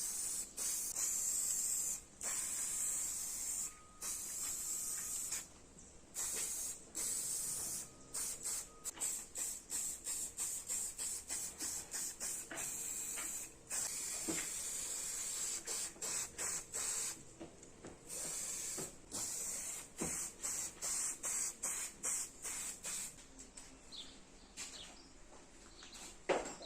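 Spray gun hissing in many on-off bursts, some held a second or two and others short quick puffs, with brief gaps between.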